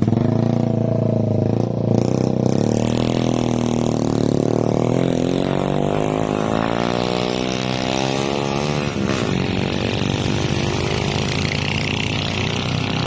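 A vehicle engine running hard, its pitch rising steadily for several seconds and then dropping abruptly about nine seconds in, after which it runs on steadily.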